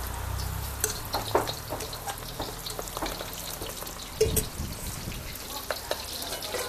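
Squid pieces coated in corn flour and turmeric frying in hot oil: a steady sizzle with many sharp crackles and pops of spattering oil.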